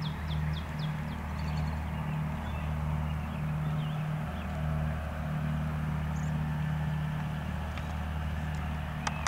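A steady low mechanical hum, like an engine running, under the whole stretch, with a quick series of high falling bird chirps in the first second.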